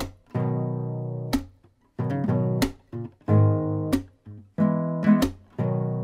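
Credits music played on acoustic guitar: strummed chords that each ring for about a second and are cut off sharply, with short gaps between them.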